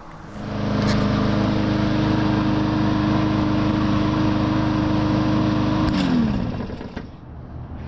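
A motor running steadily, then switching off about six seconds in, its pitch falling as it winds down.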